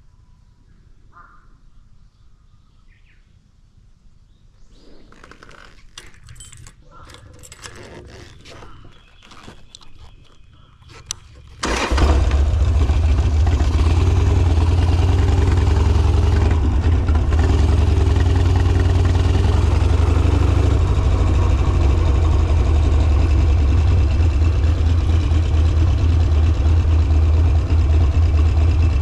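Harley-Davidson Sportster V-twin engine starting suddenly about twelve seconds in and then idling steadily with a deep, even rumble. Before it starts there are a few seconds of quiet with faint clicks and rustles.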